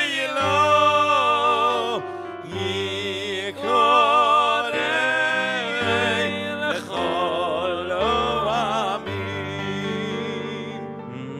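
A male cantor sings a High Holiday cantorial melody in operatic style, with wide vibrato and long ornamented runs. Sustained low accompaniment notes lie beneath. The phrases are broken by short breaths, and the voice climbs into fast high runs a little past the middle.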